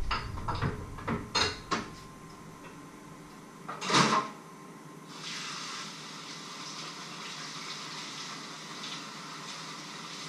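Pots and kitchen utensils knocking and clinking several times in quick succession, then a louder clatter about four seconds in, followed by a steady hiss that starts about a second later and runs on.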